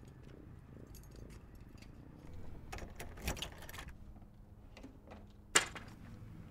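Light rustling and clinking handling sounds with scattered small clicks, busiest a little before halfway, then a single sharp click or knock about five and a half seconds in.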